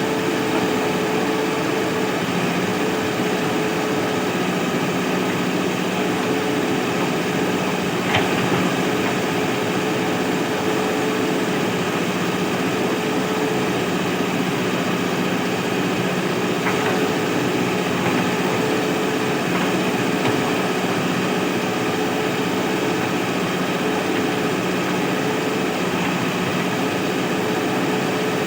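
Mahindra backhoe loader's diesel engine running steadily, with a single sharp knock about eight seconds in.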